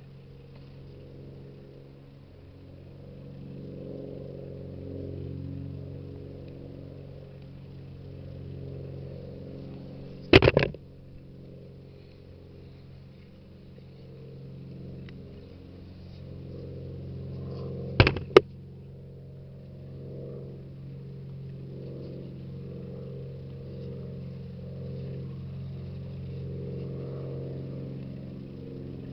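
A propeller airplane's engine drones steadily overhead, swelling and fading slowly in loudness. Two sharp knocks cut through it, about ten seconds in and again around eighteen seconds.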